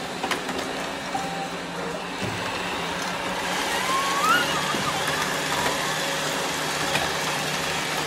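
Several robot vacuum cleaners running together: a steady motor and brush hum, with a light knock near the start and a short rising chirp about four seconds in.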